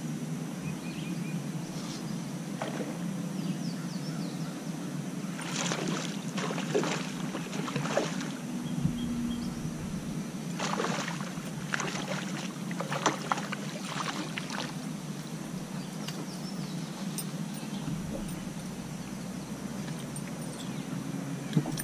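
Lake water sloshing against a bass boat's hull over a steady low hum, with a run of splashes and clicks in the middle as a hooked bass is reeled in to the boat.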